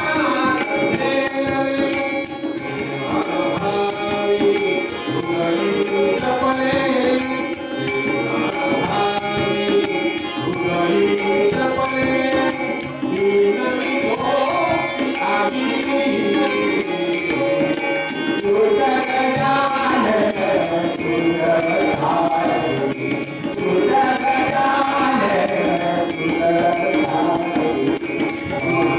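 Devotional bhajan: a male singer sings over a harmonium's sustained reed tones and a hand drum, with a steady high ticking beat keeping time.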